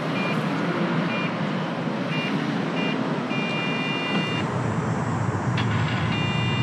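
Bike-share docking station beeping: four short electronic beeps about a second apart, then a longer beep, and another long beep near the end. Steady traffic noise runs underneath.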